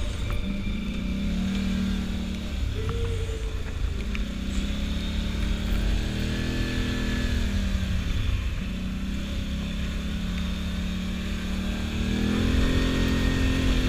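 ATV engine running while riding a rough dirt trail. Its pitch rises and falls several times as the throttle opens and eases off, over a low rumble.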